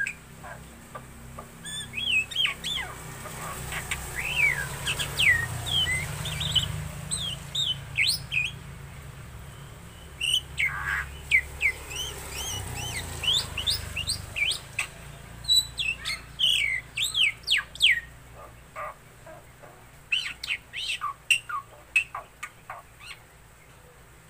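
Black-winged myna (jalak putih) singing a run of quick whistled notes that sweep up and down, mixed with sharp chattering clicks, in bursts with short pauses.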